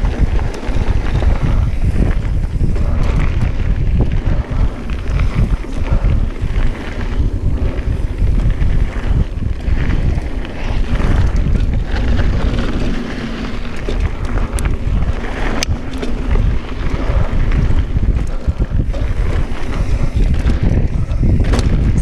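Wind buffeting the microphone over a low, fluttering rumble from a Specialized StumpJumper mountain bike rolling along a dirt trail. A couple of sharp clicks come about two-thirds of the way in.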